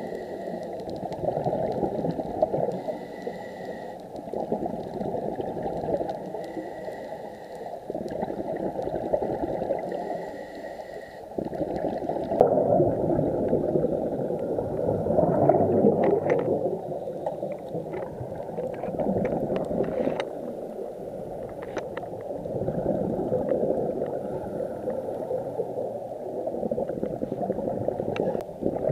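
Underwater sound of a diver's breathing: exhaled air bubbles rumbling and gurgling, swelling and easing every few seconds, with scattered sharp clicks in the second half.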